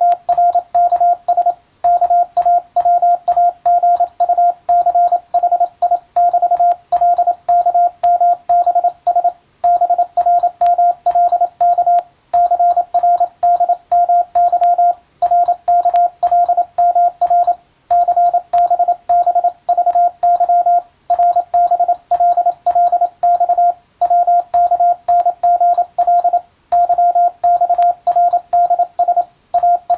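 Morse code practice signal: a single steady-pitched tone keyed on and off in fast dots and dashes, broken by short pauses every two to three seconds between groups of characters.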